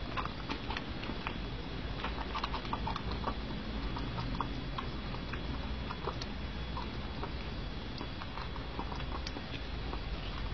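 A cat eating: many small irregular clicks and ticks of its mouth working the food, over a steady background hiss.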